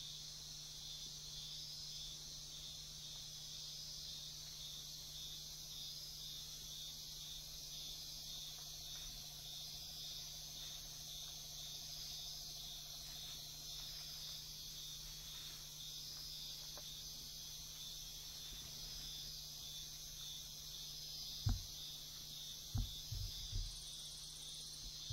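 Steady, high-pitched pulsing chorus of night insects, with a low hum beneath it. Near the end come a few dull knocks.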